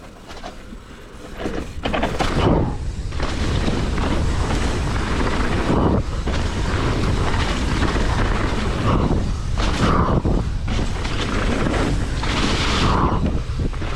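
Wind rushing over the camera microphone and tyres rumbling on dirt as a mountain bike is ridden fast over trail features, with a few heavy thuds from impacts. It swells in about a second and a half in and stays loud.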